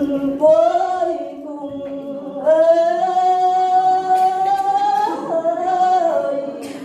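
Woman singing a Tày lượn folk song unaccompanied into a microphone, drawing out long held notes, the longest lasting nearly three seconds before the melody drops.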